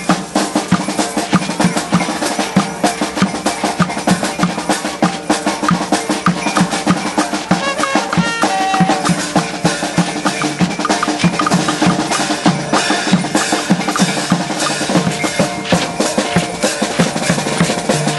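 Street percussion ensemble playing a steady, busy beat together: a large double-headed bass drum, a snare drum, clashing hand cymbals, a wooden tone block and a frame drum.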